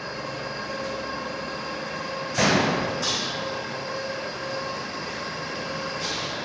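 Steady industrial workshop machinery noise with a faint steady hum, broken by a sudden loud burst about two and a half seconds in and lighter ones near three and six seconds.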